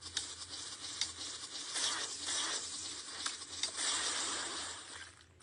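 Faint rustling with scattered light taps from a kitten being held and pawing at a phone.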